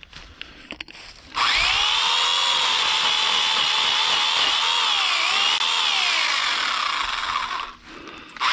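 Electric chainsaw starting about a second in and cutting wood for about six seconds, its motor whine dipping and sliding lower in pitch as the chain bites in, then stopping near the end before starting again right at the close.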